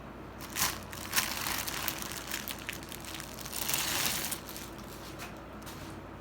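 Packaging crinkling and crackling as it is handled during an unboxing: sharp crackles about half a second and a second in, irregular crinkling after, and a longer, louder crinkle around four seconds in.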